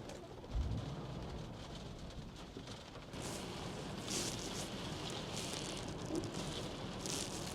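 Wind buffeting the microphone, with a low rumble about half a second in, over a steady hiss of rain; short hissing gusts come about four and seven seconds in.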